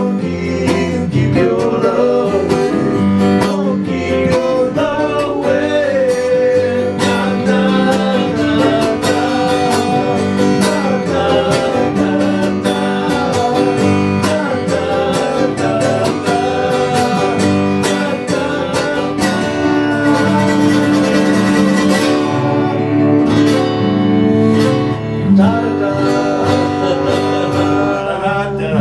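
Country-style music led by acoustic guitar, playing steadily through and stopping at the end.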